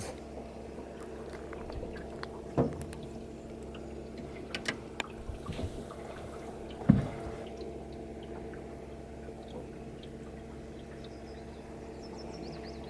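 Water trickling and dripping around a boat on a river, over a steady low hum, with a few light knocks, the loudest about seven seconds in.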